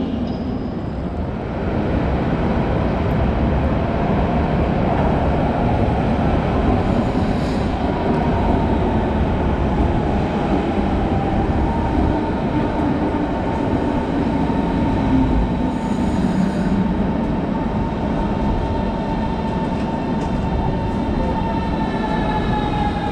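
Berlin S-Bahn electric train running into the platform, wheels and motors giving a steady rumble with a whine. The whine falls in pitch over the last few seconds as the train slows.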